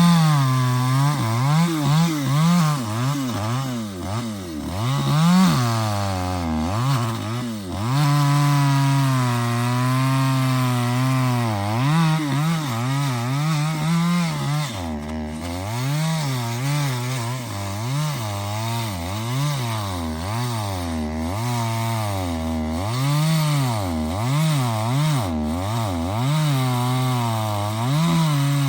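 Chainsaw cutting through a large tree trunk, the engine pitch repeatedly dipping and recovering as the chain bites under load, with a steadier stretch about a third of the way in.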